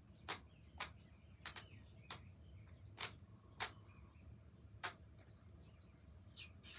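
Silicone pop-it fidget toy being pressed bubble by bubble: about ten sharp pops at uneven intervals.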